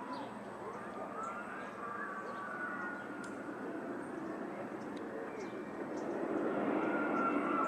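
Distant engine drone, steady with a wavering pitch, growing louder from about six seconds in, with short high chirps scattered over it.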